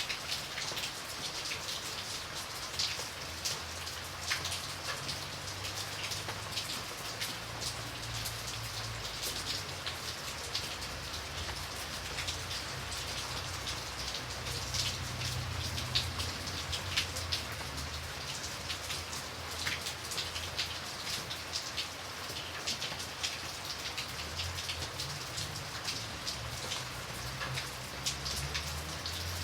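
Steady rain falling, with many separate drops striking a hard surface close by, over a low rumble that swells and fades.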